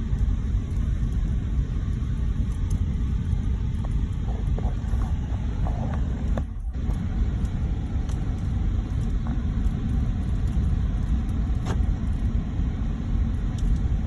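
Car driving on a snowy road, heard from inside the cabin: a steady low rumble of engine and road noise with a few faint small clicks, briefly dipping a little past halfway.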